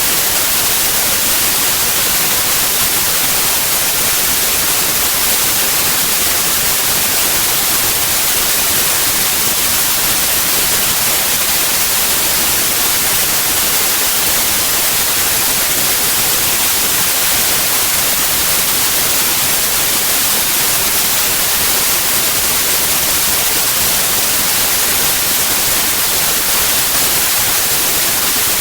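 Steady white noise: an even, unchanging hiss with no breaks, strongest in the treble.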